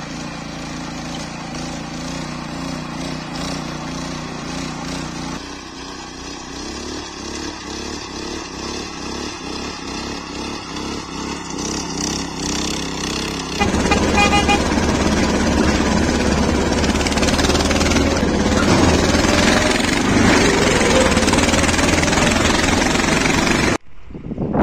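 5.5 hp walk-behind rotary tiller (motor hoe) engine running under load as its tines churn through soil, in several short cuts; it gets louder and rougher about fourteen seconds in and cuts off abruptly near the end.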